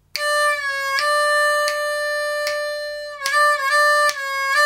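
Hohner Special 20 diatonic harmonica in C playing its four-hole draw note (D) again and again, each time bent down and released back up to the natural note, with the notes blended almost continuously; the last note is played clean.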